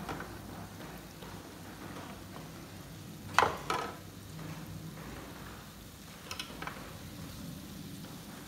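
Shrimp and mussels sizzling gently on an electric contact grill plate, with a sharp double knock about three and a half seconds in and a few light clicks later.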